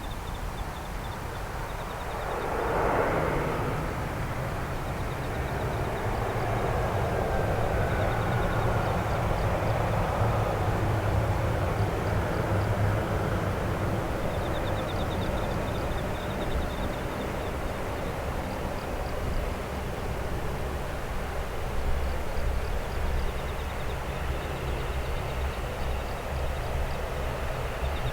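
Jet airliner's engines running as it passes, swelling in about two to four seconds in, with a steady low rumble and a faint falling whine partway through.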